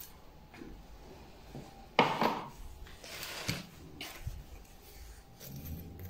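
Handling sounds of repotting: gloved hands and a small metal tool knocking and scraping against a ceramic planter and its cardboard box, with soft rustles. The loudest is a sharp knock about two seconds in, with another about a second and a half later.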